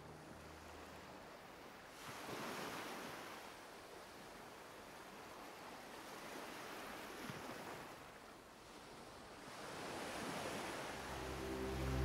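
Faint ocean waves washing onto a shore, swelling and falling back three times at about four-second intervals. Soft music with held tones fades in near the end.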